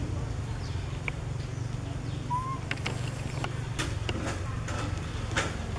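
Outdoor ambience: a steady low rumble with scattered light clicks and taps, and one short rising chirp about two seconds in.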